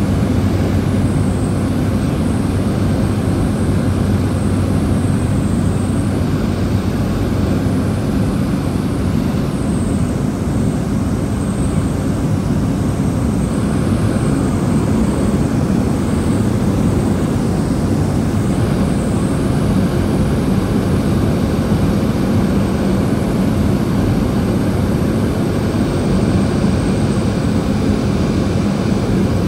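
Turboprop airliner's engine and propeller running steadily, a constant low drone with a faint high whine above it.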